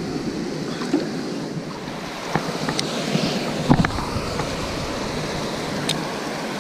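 Water rushing over a low dam spillway and between boulders, a steady wash of noise, with a few sharp clicks and knocks over it, the loudest a little under four seconds in.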